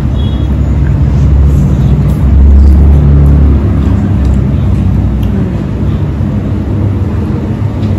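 A loud, steady low rumble, swelling for about a second roughly two and a half seconds in.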